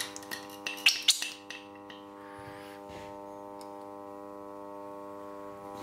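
A few sharp metallic clicks and taps in the first second and a half as small parts are handled at a lathe carriage, then a few faint ticks, over a steady hum.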